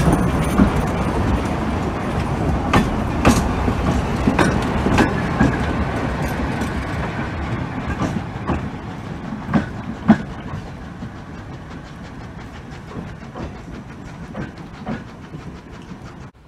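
Narrow gauge passenger train running away into the distance, its carriage wheels clicking irregularly over the rail joints. The rumble fades steadily as it goes.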